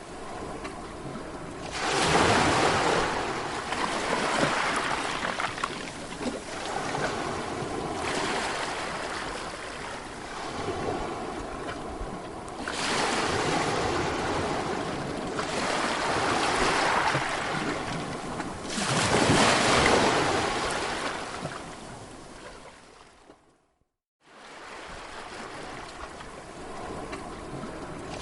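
Sea waves breaking and washing on a shore, one loud surge every few seconds between quieter wash. About 24 seconds in, the sound cuts out briefly to silence and then resumes.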